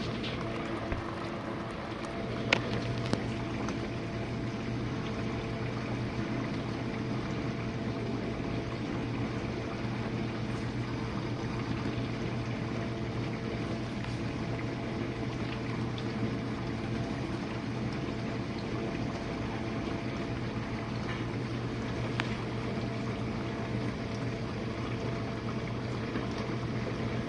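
Jenn-Air dishwasher in its wash cycle: the circulation pump hums steadily while water sprays and sloshes inside the tub. A few sharp clicks come in the first three seconds.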